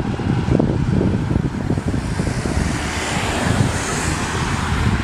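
Road traffic: vehicles running along a street, a steady low rumble.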